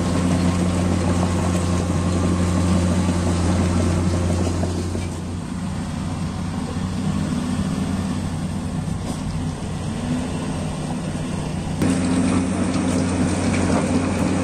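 Heavy diesel engine of earthmoving equipment running steadily with a deep drone. The sound thins about five seconds in and comes back fuller abruptly near the end.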